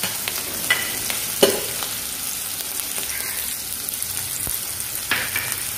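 Chopped green chillies, garlic and ginger frying in a little oil in a nonstick pan: a steady sizzle. A wooden spatula stirs through it, scraping and knocking against the pan a few times, most sharply about a second and a half in.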